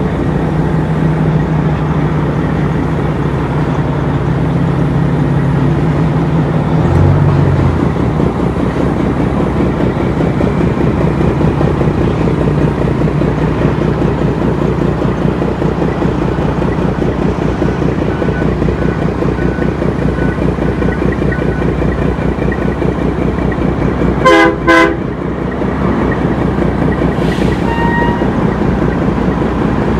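International 9900 dump truck's diesel engine idling with a steady, rapid chug. About three quarters of the way in, the truck's horn gives two short blasts in quick succession.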